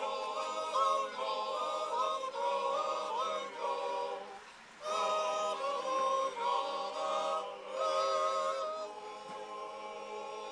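A choir singing a cappella: several voices holding chords with a slight waver. The singing breaks off briefly about halfway through, then goes on.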